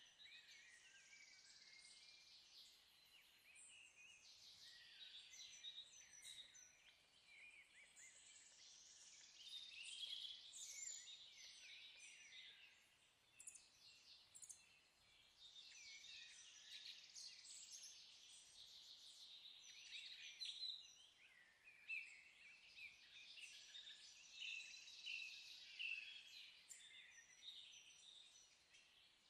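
Faint chorus of birds chirping, many short calls overlapping throughout.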